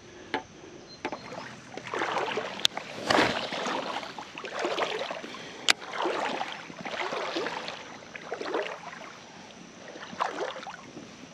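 Wading through shallow creek water: a run of sloshing swishes about once a second, with two sharp clicks a few seconds apart.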